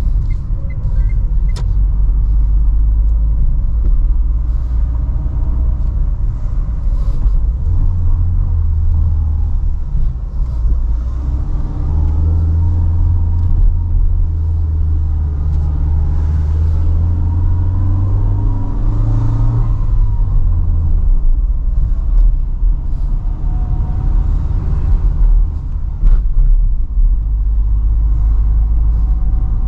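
Cabin sound of a 2012 Renault Sandero Stepway's 1.6-litre 16-valve engine driving along a city street, over a steady low road rumble. About eight seconds in, the engine note grows stronger under throttle, rises slightly, and falls away about twenty seconds in.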